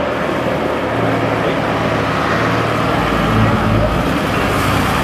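Deutz-Fahr Agrotron 150 tractor's diesel engine running steadily as the tractor drives slowly past. It grows a little louder and deeper about three seconds in as it comes closest.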